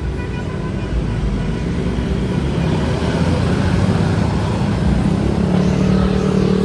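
Bus engine and road noise, a steady low rumble that grows slightly louder. About five seconds in, a low steady hum joins it for about a second and a half.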